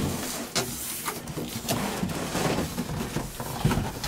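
Foam packing and a cardboard box rustling and scraping as a 3D printer frame is lifted out of the box and set down on a table, with several sharp knocks and clicks spread through the handling.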